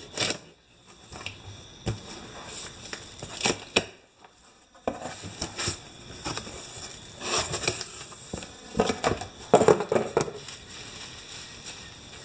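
Packing tape slit with a knife on a cardboard box, then the cardboard flaps pulled open and bubble wrap crinkled and rustled by hand. There is a short pause about four seconds in, and denser rustling with sharp crackles after it.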